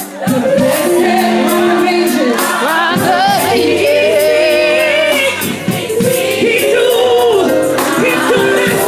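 Gospel song sung by women, one leading through a microphone with other voices joining, over sustained keyboard chords and a steady beat.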